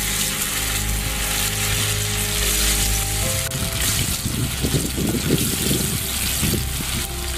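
Chicken pieces deep-frying in hot oil, a steady sizzle with a stretch of louder bubbling crackle about four seconds in, under background music.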